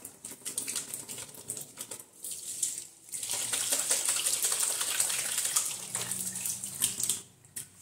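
Kitchen sink tap running while hands are washed under it, the splashing changing as the hands move in the stream. The water shuts off near the end.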